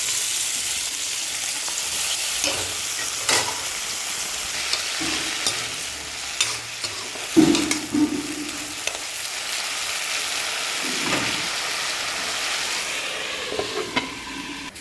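Vegetables frying in hot oil in a pan, a steady sizzle that starts abruptly. A spatula scrapes and knocks against the pan now and then as the food is stirred.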